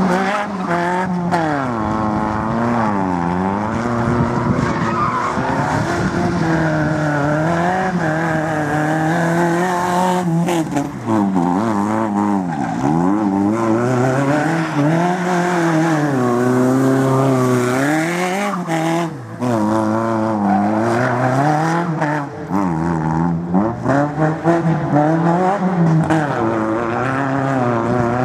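A hatchback's petrol engine revving hard, its pitch swinging up and down again and again as the car is thrown through a tight slalom course, with tyres squealing and skidding on the tarmac. The sound dips briefly a few times as the driver lifts off or changes gear.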